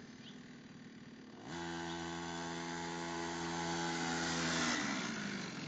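Small engine of a cheap Chinese children's quad bike, its exhaust fitted with an added second silencer, revving up about one and a half seconds in and holding a steady high pitch. The revs drop away near the end.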